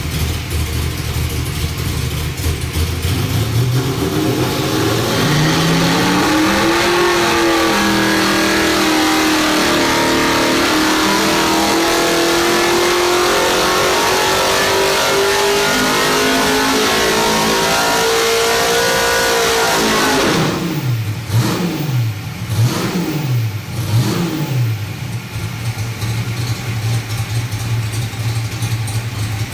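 Ford 351 Clevor V8 race engine on an engine dyno making a full-throttle pull: it rises from idle and holds high rpm, its pitch climbing slowly, for about thirteen seconds. It then drops off suddenly, takes a few quick throttle blips, and settles back to a steady idle.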